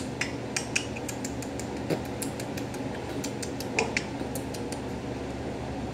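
Light clinks and ticks of a utensil against a dish, a quick scatter of small clicks with a couple of louder knocks about two and four seconds in, over a steady low hum.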